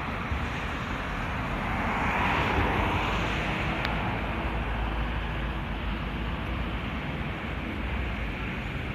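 Steady road-traffic noise, with one vehicle swelling up and passing about two to three seconds in, over a low wind rumble on the microphone.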